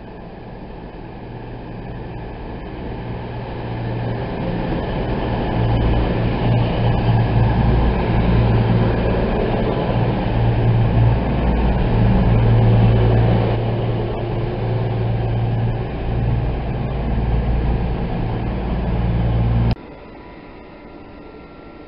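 CrossCountry Class 220 Voyager diesel-electric multiple unit running along the platform and past close by, its underfloor diesel engines giving a steady low tone over the rumble of the train, growing louder over the first six seconds. The sound cuts off abruptly near the end to a much quieter background hum.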